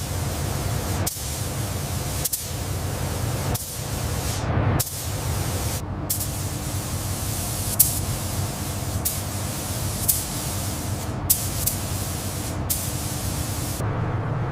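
Compressed-air spray gun hissing in long bursts, each broken by a brief release of the trigger. The hiss stops shortly before the end, leaving a low hum.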